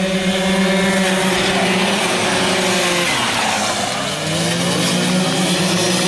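Racing motor scooters' small engines running hard at high revs as they pass, a steady high engine note. Its pitch drops about three seconds in, then climbs back.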